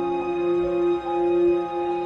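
Background music: slow, held notes sounding several at once, shifting to new notes every second or so.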